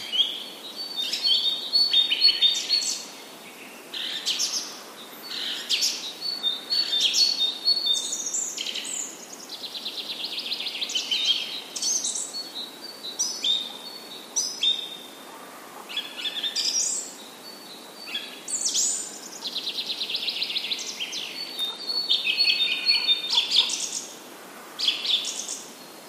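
Small birds chirping and singing: one short high phrase after another, with a few fast trills, separated by brief pauses.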